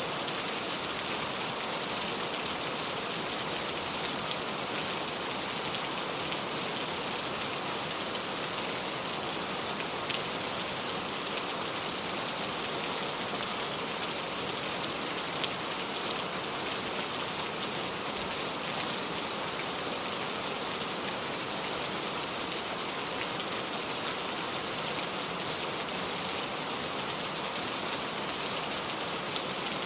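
Heavy rain pouring down steadily, an even hiss with scattered faint drop ticks.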